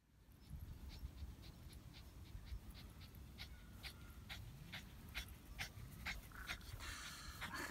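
Shih Tzu panting, a quick even run of about three to four breaths a second over a low rumble.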